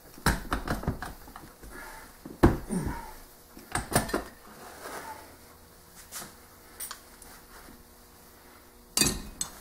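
Metal Rotax 503 engine parts clanking and knocking as they are handled and taken apart on a workbench. The clatter comes in separate bursts, the loudest about two and a half seconds in and another near the end.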